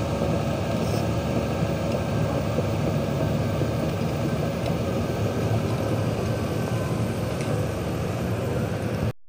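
Truck-mounted concrete pump running steadily, its engine driving the pump and boom, with a few faint clicks; the sound cuts off abruptly near the end.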